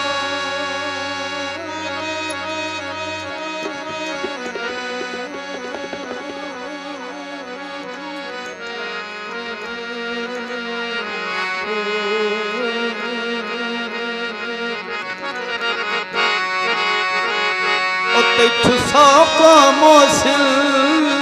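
Instrumental interlude of live Punjabi folk music: a harmonium plays a sustained, wavering melody. It swells louder near the end as hand-drum strokes come in.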